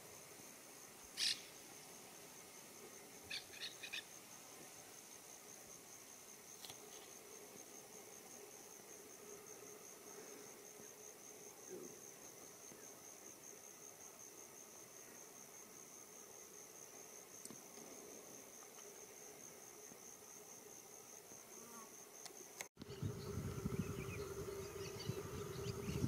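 Faint, steady high-pitched insect trill, finely pulsed, with a few short chirps about a second in and again around three to four seconds. Near the end the sound changes abruptly to a louder low rumble with many quick chirping calls.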